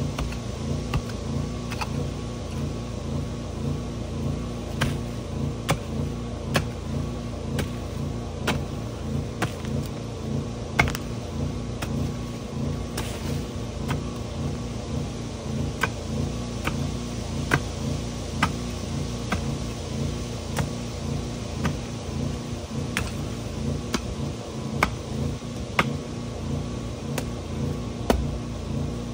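An engine running steadily, with frequent short sharp clicks and knocks over it.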